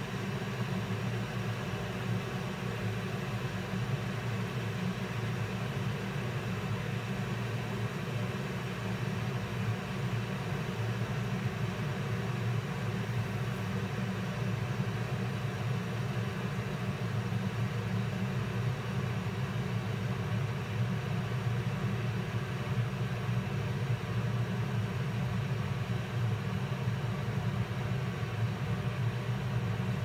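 Aicok single-serve pod coffee maker running a brew cycle: a steady, even hum from the machine's pump.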